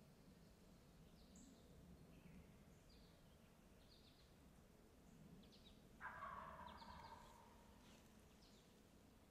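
A wild turkey gobbler gobbling once, faintly, about six seconds in, a rattling call lasting about a second. Small birds chirp faintly throughout.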